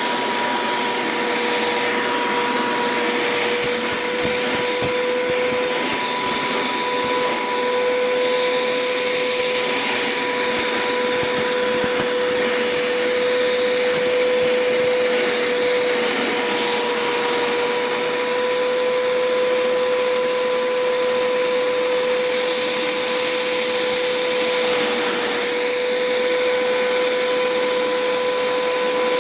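Hoover Power Scrub Deluxe carpet cleaner running with its upholstery tool: a steady motor hum with a constant whine, and a high suction whistle that dips and shifts in pitch now and then as the tool works over the couch fabric.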